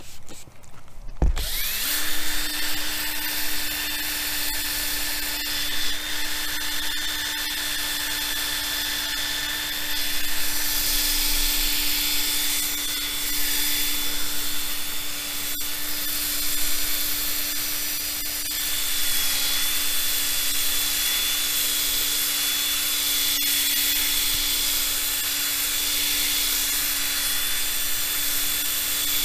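Cordless drill spinning a polishing pad against a plastic motorcycle windscreen, starting about a second in and then running steadily at an even motor pitch.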